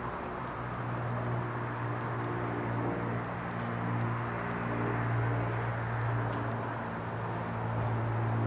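Steady low mechanical hum with a few faint steady tones above it and a hiss over it.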